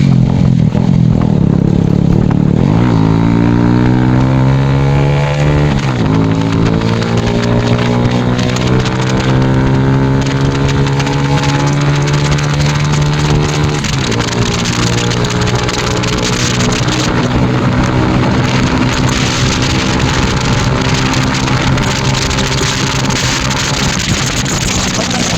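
TVS 110cc motorcycle's single-cylinder engine through an SC Project-style aftermarket silencer, accelerating hard. Its pitch climbs, drops at a gear change about six seconds in, climbs again and drops at another shift around fourteen seconds in, then holds fairly steady at speed.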